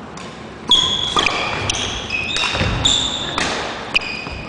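Badminton shoes squeaking sharply again and again on a wooden gym floor as players move in a rally, with a few sharp racket-on-shuttlecock hits among the squeaks. It starts quiet and the squeaking begins under a second in.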